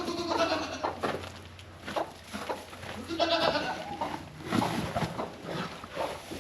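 A goat bleating twice, once at the start and again about three seconds later, each call about half a second long, with scattered rustling and clicks in between.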